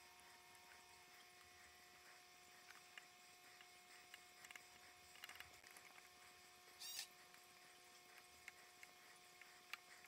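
Near silence: faint room tone with a steady low hum and a few scattered faint ticks, and a brief faint high chirp about seven seconds in.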